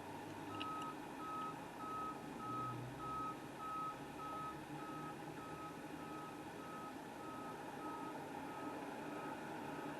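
Truck's reversing alarm beeping: a single tone repeating in short, evenly spaced beeps, growing fainter near the end, over a low engine hum.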